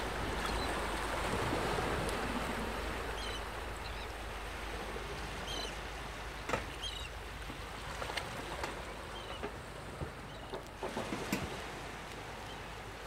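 Steady rushing background noise, slowly fading, with a few faint short chirps and several light clicks in the second half.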